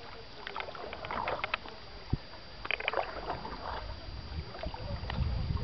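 Water splashing around a paddled dugout canoe (pirogue), in clusters of small splashes and drips every two seconds or so, as from paddle strokes. A low wind rumble on the microphone grows stronger near the end.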